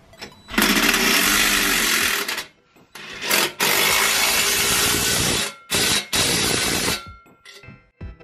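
DeWalt cordless impact gun hammering in several bursts, the longest about two seconds, as it tightens the 12 mm nut of a V-band exhaust clamp.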